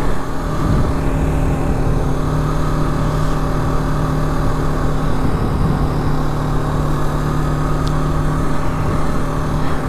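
Yamaha YZF-R3's stock parallel-twin engine running at a steady cruising speed, its pitch holding level, with wind rushing over the helmet microphone.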